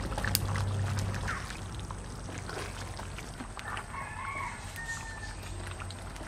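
A chicken calling in the background, a short run of pitched calls about four seconds in, over light clicks of a spatula stirring curry in a pot.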